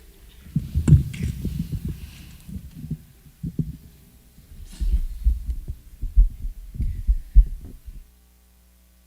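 A run of irregular low thumps and rumbles, close and heavy, that stops abruptly about eight seconds in and leaves only a faint steady hum.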